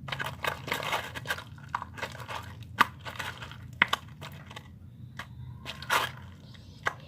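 Glue-and-detergent slime being stirred and worked by hand, giving irregular sticky crackles and clicks.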